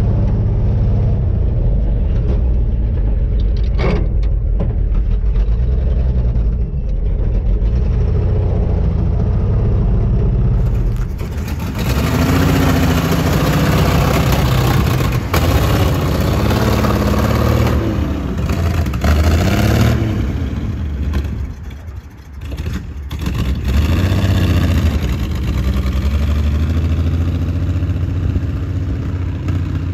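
A 1956 Chevrolet truck's 235 straight-six engine running on the road. At first it is a steady low rumble heard from inside the cab. From about ten seconds in it is heard from the roadside as the truck drives past, its engine note rising and falling as it accelerates, and then it moves off down the street.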